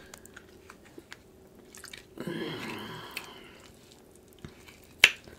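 Chewing, and soft clicks from a king crab leg shell being worked apart by hand, with one sharp snap of the shell about five seconds in.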